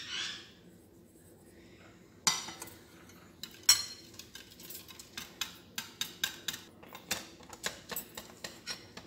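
Wire whisk beating semolina cake batter in a ceramic bowl. The wires clink against the bowl, with a louder clatter about two seconds in and another a second later, then settle into quick, even clinks about three a second.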